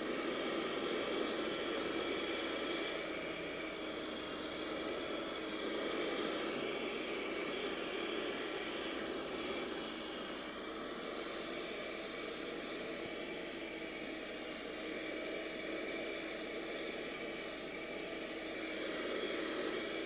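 Piranha 4005 handheld car vacuum cleaner, powered from the car's lighter socket, running steadily while it vacuums a fabric car seat: a constant small-motor whine over an even rush of air.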